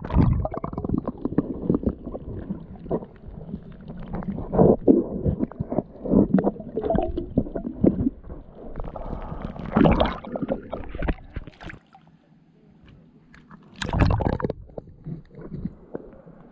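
Muffled sea water gurgling and sloshing around a camera held in the water, with irregular splashes. There is a short quieter stretch about twelve seconds in.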